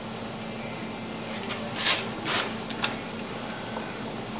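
Steady low hum of shop background noise, with two short rasping noises in the middle and a sharp click just after.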